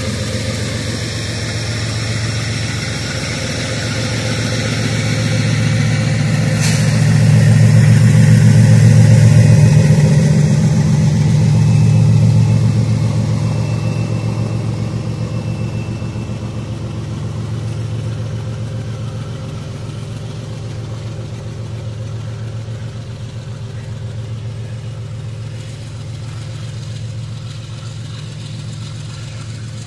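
GE ES43BBi diesel-electric freight locomotive's V12 diesel engine running as the locomotive passes close by. Its drone grows to its loudest about a third of the way in and then slowly fades as it moves away, with one short sharp click shortly before the peak.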